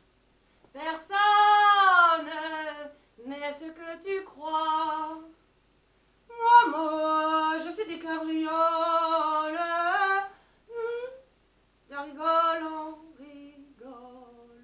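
A woman singing unaccompanied in five phrases of held, gliding notes, broken by short pauses.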